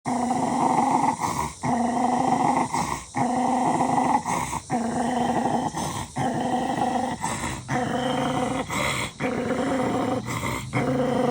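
A puppy growling continuously at his own reflection, in long rough stretches broken by short pauses about every second and a half.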